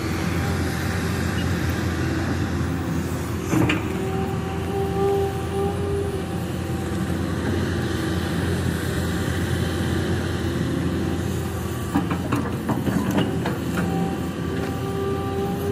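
Kobelco SK200 hydraulic excavator working: a steady diesel engine drone, with a held whine from the hydraulics a few seconds in and again near the end. Sharp knocks and clanks of the bucket working earth and stones come about four seconds in and in a cluster around twelve to thirteen seconds.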